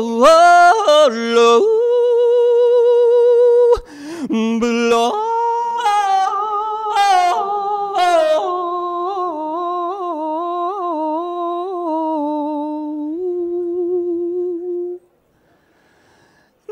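A single voice singing unaccompanied, drawing out long held notes with vibrato and sudden yodel-like jumps in pitch. It breaks off about two seconds before the end.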